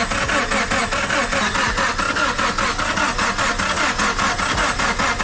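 Subaru engine being cranked over by the starter with an even rhythm of about five pulses a second, never catching: a no-start, the sign of bent valves after the timing-belt tensioner failed.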